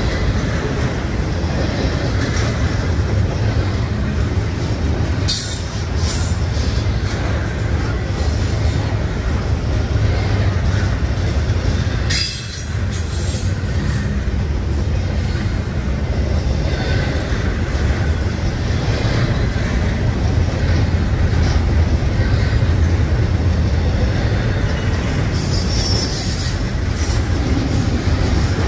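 Double-stack intermodal freight train rolling past close by: a steady heavy rumble of wheels on rail, with brief high wheel squeals now and then and a longer run of squealing near the end.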